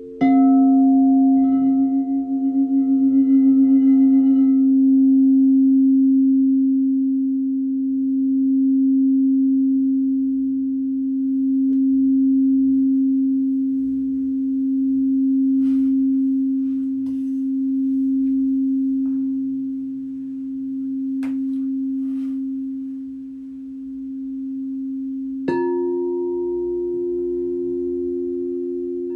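Singing bowl struck just after the start, its low note ringing on with a slow wavering swell and fall. About 25 seconds in, a second strike adds a higher note over it.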